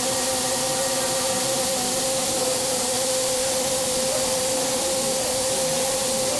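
CNC milling machine cutting a billet aluminium cylinder head: a steady spraying hiss over one steady, unchanging tone from the running spindle.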